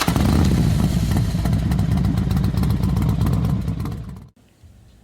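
Motorcycle engine running and revving, fading out about four seconds in.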